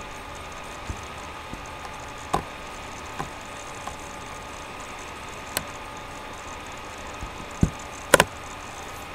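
Scattered sharp knocks and clicks, the loudest a quick double knock near the end, over a steady hiss with a faint constant tone.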